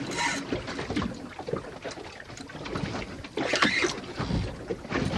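Water sloshing and slapping around a boat anchored in a heavy ocean swell, uneven in level, with a louder rush of noise about three and a half seconds in.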